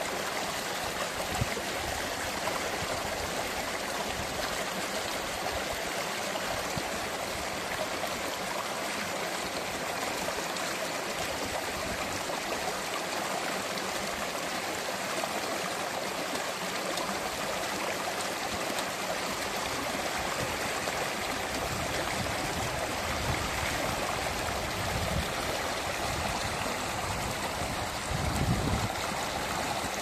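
Steady rushing of flowing water, like a mountain stream, unbroken throughout. A brief low rumble comes near the end.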